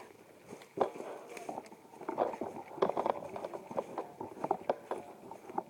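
Faint handling noise: irregular rustling and light clicks, as a whistle is being wiped off.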